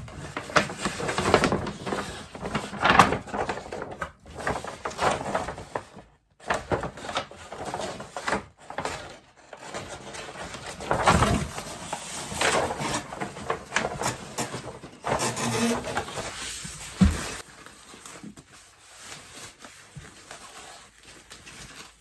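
Packaging rustling and crinkling in bursts as a new purse is unwrapped and handled, with a sharp knock about seventeen seconds in; the handling noise is quieter after that.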